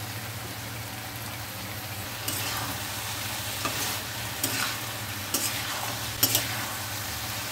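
A metal spatula stirring chopped vegetables and cashews frying in a kadai, over a steady sizzle. From about two seconds in the spatula scrapes across the pan about five times in short strokes.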